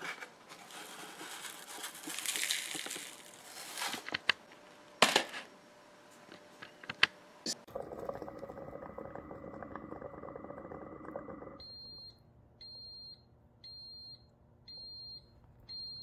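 Ninja DualBrew Pro coffee maker running a steady hum while it dispenses hot water. The hum stops suddenly about twelve seconds in, and the machine then gives five short high beeps about a second apart, signalling that the cycle has ended.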